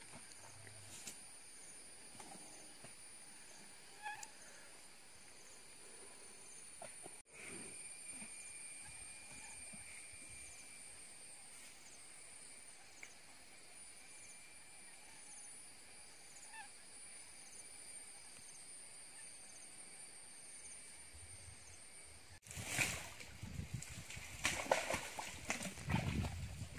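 Faint outdoor ambience with a steady high insect drone. About 22 seconds in it gives way to louder, uneven sloshing and splashing of water and mud as an elephant wades at a riverbank.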